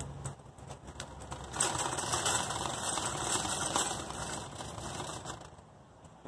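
A rapid mechanical clattering rattle that starts abruptly about a second and a half in and dies away near the end.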